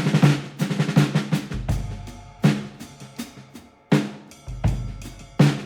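Background music: a drum-led track with kick, snare and a bass line, strong hits roughly every couple of seconds.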